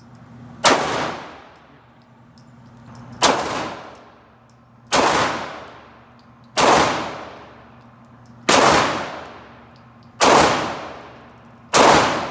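Seven pistol shots fired one at a time, about one and a half to two and a half seconds apart, in slow aimed fire. Each sharp crack rings on for about a second in an indoor shooting range.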